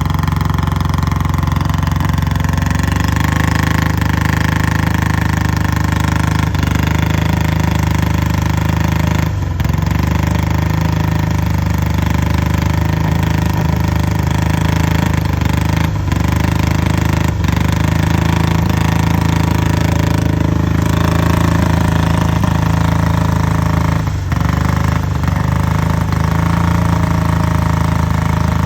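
1961 BSA 650 parallel-twin motorcycle engine running steadily just after starting, with a few brief stumbles as it clears its throat.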